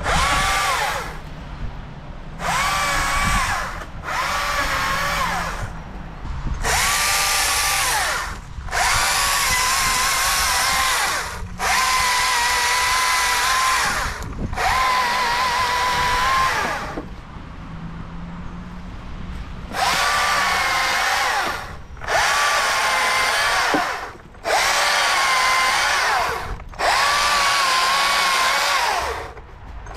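STIHL MSA 220 C battery chainsaw triggered on and off in about a dozen bursts of one to three seconds each as it cuts through a fallen branch. Its electric whine wavers and dips in pitch while the chain is in the wood.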